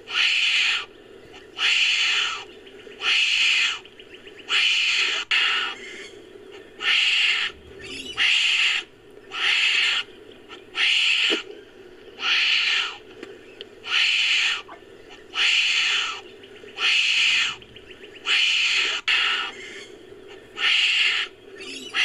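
Northern hairy-nosed wombat sound effect, edited together from wombat recordings: short, harsh, raspy calls repeated about once a second, with a faint low hum between them.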